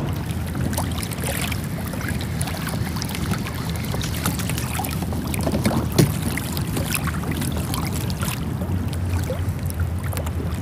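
Water lapping against the hull of a Hobie Outback pedal kayak under a low steady rumble, with scattered light clicks and knocks; the loudest knock comes about six seconds in.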